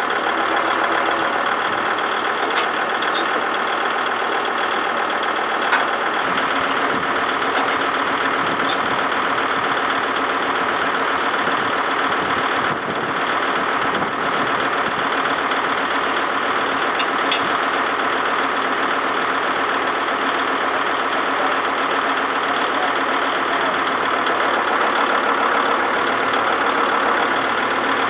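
Kubota tractor's diesel engine idling steadily, with a few light clicks on top.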